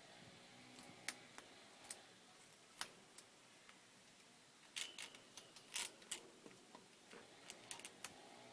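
Irregular sharp clicks and ticks, about a dozen in all, bunched together in the middle and again near the end.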